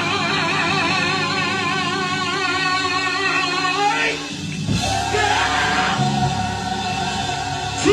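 Gospel choir singing long held notes with vibrato over sustained band accompaniment, moving to a new held chord about halfway through.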